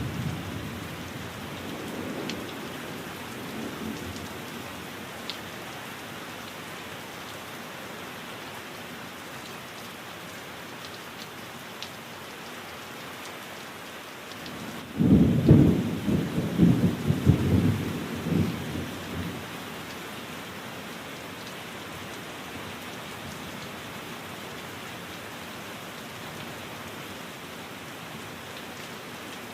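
Steady rain falling, with a clap of thunder about halfway through that rumbles low and loud for about four seconds before dying away to the rain alone.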